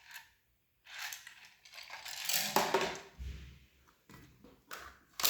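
Plastic paintball marker magazine being handled and slid against the marker, with scraping and rubbing, a dull knock partway through, and a sharp click at the end as it seats.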